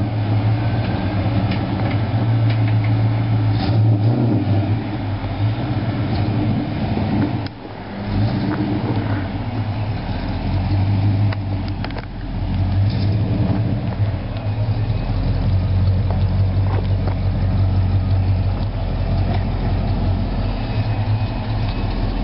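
1989 Ford Mustang LX's 5.0 V8 running through a Bassani off-road X pipe with no catalytic converters and Super Turbo mufflers, a steady deep exhaust note with a couple of brief dips.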